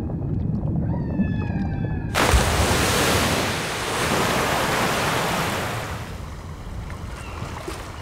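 Sound-designed ocean effects: a deep underwater rumble with a few faint gliding tones, then about two seconds in a sudden loud rush of surging water as the stepped tower breaks the surface, which dies away over the next few seconds into quieter sea noise.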